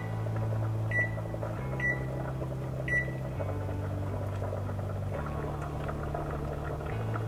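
KitchenAid Superba range's touch control panel beeping as its timer keys are pressed: short high beeps about a second apart in the first three seconds, confirming each key while the kitchen timer is set. Under them runs a low hum that steps in pitch every second or two.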